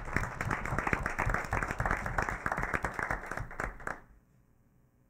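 A small audience applauding, dense hand-clapping that stops abruptly about four seconds in.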